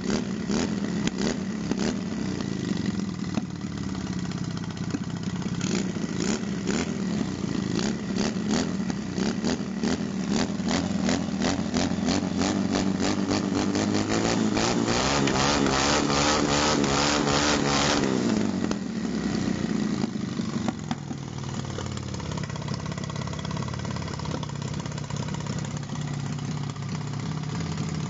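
Freshly assembled 250cc twin-cylinder motorcycle engine with enlarged modified pistons, running on open exhausts. It idles, climbs in revs from about halfway, holds high for a few seconds, then drops suddenly back to a lower idle.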